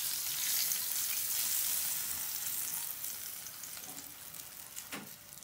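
Hot oil with red pepper flakes sizzling and crackling as it is poured from a small pan onto cold yogurt, dying away over the last couple of seconds.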